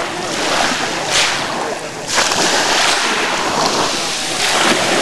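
Wind buffeting the microphone over sea water splashing and lapping close by, with louder swishes about one and two seconds in.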